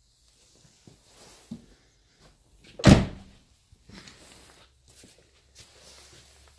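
A car door shutting once with a loud thunk about three seconds in, amid quieter rustling and handling noises.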